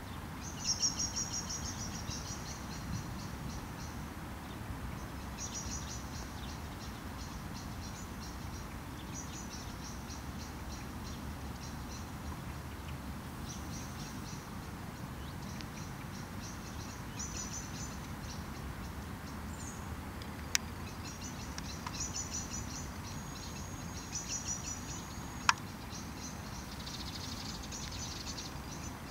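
Insects chirping in repeated short, high-pitched pulsing trills, one bout held as a steady high note, over a low steady rumble. Two sharp clicks come a few seconds apart in the later part.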